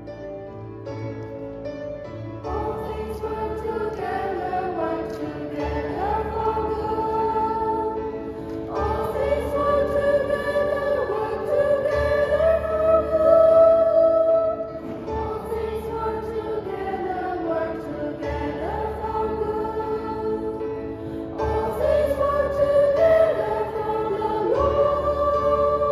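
Youth church choir of children and teenagers singing a hymn-style anthem in parts, with keyboard accompaniment underneath.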